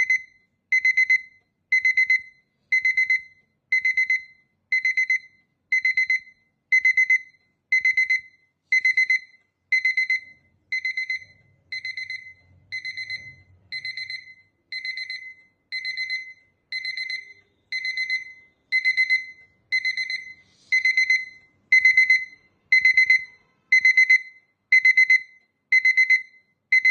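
Sonam electronic alarm clock sounding its alarm: short clusters of rapid high-pitched beeps, repeating about once a second without a break. The beeping dips a little in loudness partway through and comes back louder near the end.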